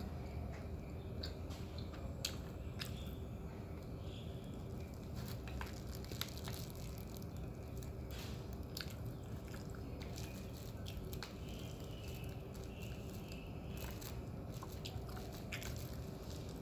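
Close-up chewing and biting of roti prata, with many scattered sharp mouth clicks and smacks as the flatbread is eaten by hand. A faint steady hum sits underneath.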